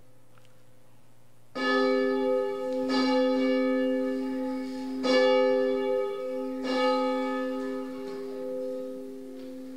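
Church bell tolling: four strikes starting about a second and a half in, each ringing on and fading slowly between strikes.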